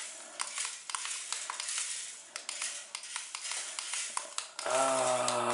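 Many light, irregular clicks and ticks over a faint hiss while a tiny RC Pocket Racer toy car is driven in short taps across a tiled floor. Near the end a person's voice comes in with a steady, held hum.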